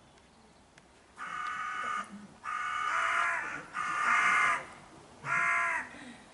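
An animal calling four times in drawn-out pitched calls, each under a second, starting about a second in.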